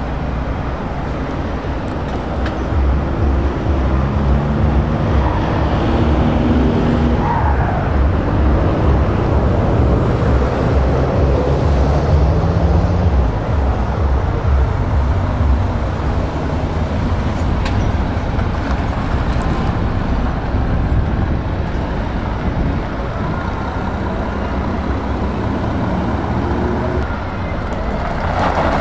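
Diesel engines of a DAF XF and a MAN TGX tractor unit pulling away and driving past: a deep rumble that rises in pitch as they accelerate through the gears, then settles into a steady drone.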